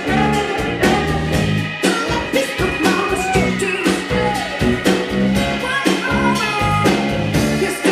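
Live band music with a steady beat of drums and bass, and a melody line sliding up and down above it.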